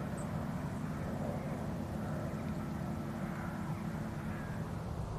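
Steady low outdoor rumble with a faint steady hum over it, even throughout.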